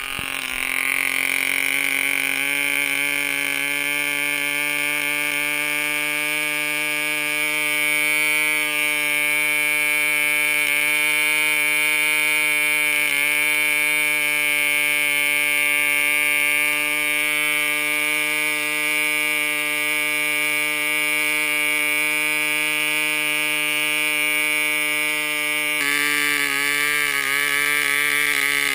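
RYTM 2.5cc model diesel engine, a compression-ignition two-stroke, running at full speed on a test stand and turning a 9x6 propeller at about 9,000 rpm. It picks up in loudness right at the start, then holds a steady pitch, which wavers briefly near the end.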